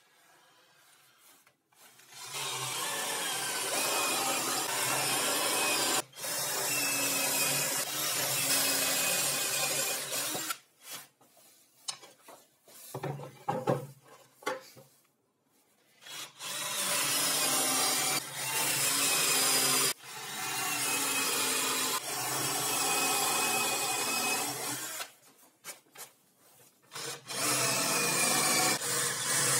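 A tool working plywood, in several long, even, rasping runs of a few seconds each with short breaks between them, and a stretch of scattered knocks and scrapes about halfway through.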